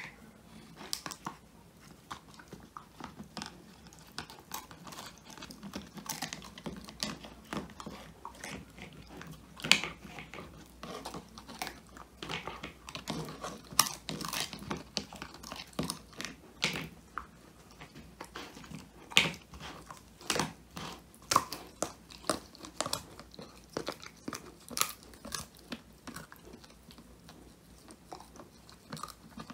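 Old English Sheepdog puppy chewing and crunching a whole quail treat, with irregular crunching bites throughout and the sharpest crunches about ten, fourteen and nineteen seconds in.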